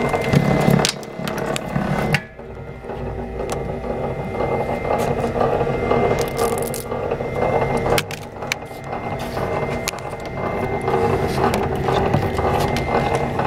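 BS-015M electric wire stripping machine running, its gears and rollers clattering with many small clicks and a thin steady whine as small-gauge wire is fed through to have its insulation cut. The clatter drops away briefly about two seconds in, then picks up again.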